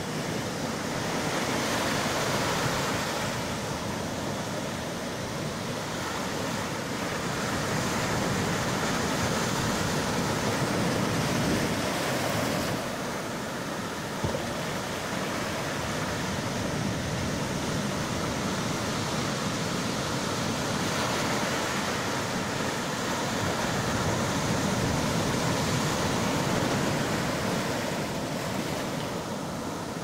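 Small sea waves breaking and foamy surf washing up a sandy beach: a steady rushing hiss that swells and eases as each set of waves comes in, with a brief lull about halfway through.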